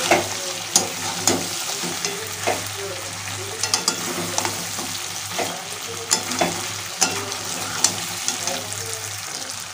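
Spiced chicken and potato curry sizzling in oil in a metal kadai, stirred with a metal ladle that scrapes and clinks against the pan about once or twice a second. The masala has been fried down until the oil separates.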